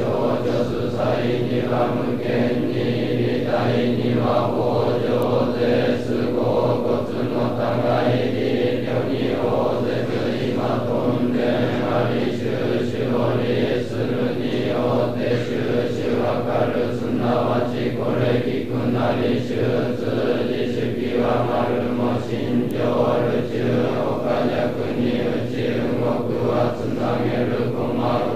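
Over two hundred Sōtō Zen monks chanting a sutra in unison on a low, steady monotone, the syllables pulsing evenly without a break.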